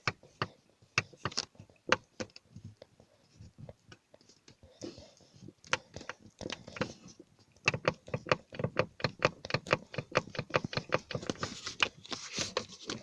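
Hyundai Elantra HD dashboard panel creaking: a run of short plastic squeaks and ticks, sparse at first, then coming thick and fast from about halfway through. This is the panel squeak the owner wants to cure without taking the dash apart.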